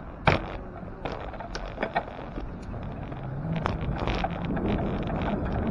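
Riding noise from a bicycle in city traffic: low road rumble and wind on the microphone, building toward the end, with scattered sharp clicks and knocks, the loudest just after the start.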